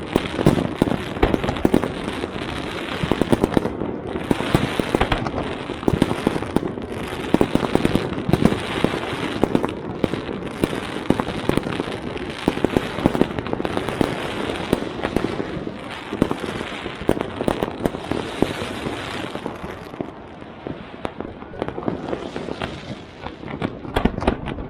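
Aerial fireworks going off in a dense, continuous barrage of bangs and crackles, thinning briefly near the end before picking up again.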